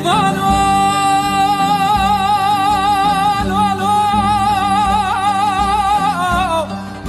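A song: a singer holds one long note with a wide wavering vibrato over instrumental backing, and the note falls away shortly before the end.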